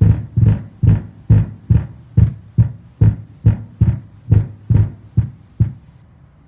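Sony SA-WX700 subwoofer playing a song's bass beat, about two deep pulses a second, which stop about six seconds in, leaving a faint hum. The owner describes the sub as cutting in and out, as if a noise gate were on it, a fault he is troubleshooting.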